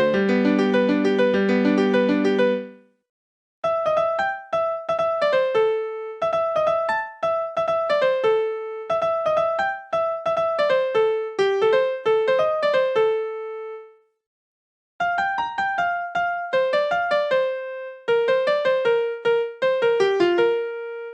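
Siemens Xelibri 1 ringtones in an electric-piano-like tone: a fuller tune with chords and bass ends about two and a half seconds in, then after a short gap a new melody of short single notes plays in repeating phrases, pausing for about a second past the middle before going on.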